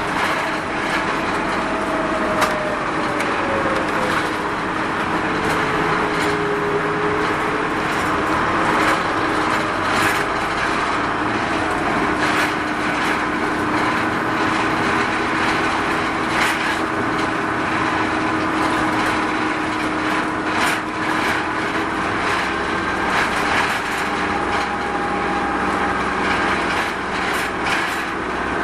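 Onboard running sound of a Mitsubishi Fuso Rosa minibus: its diesel engine and road noise, the engine note falling a few seconds in and then holding steady. Frequent short rattles and clicks from the body and fittings.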